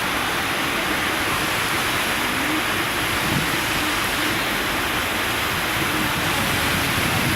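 A steady, even rushing noise with no breaks, with a few faint wavering tones underneath.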